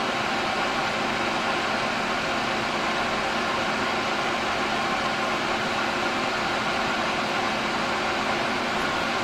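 Steady, unchanging blowing hiss with a faint low hum, like air from a blower or fan.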